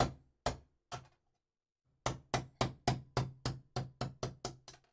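Ball-peen hammer tapping a steel pin punch to drive the alignment pins out of a Stihl MS 660 chainsaw crankcase. There are three taps in the first second, then after a pause a quicker run of about a dozen taps, roughly four a second.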